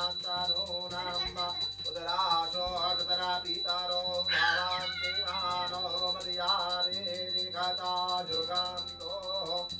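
Sanskrit mantras chanted in a sing-song voice during a Hindu puja, with a small puja hand bell ringing steadily throughout.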